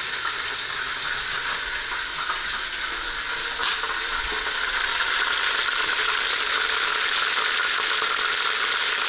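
Beef roast browning in hot oil in a pot on a gas stove, sizzling steadily and getting a little louder about halfway through.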